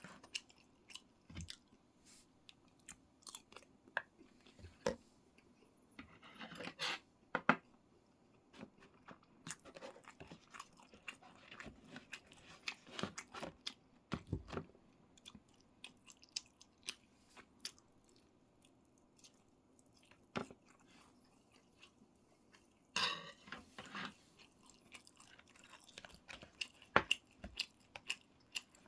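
A person eating close to the microphone: wet chewing with crisp crunches and many short clicks, and a few longer bursts of busier chewing about six seconds in and again near the end.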